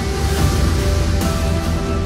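Background music with a deep bass and sustained dramatic tones.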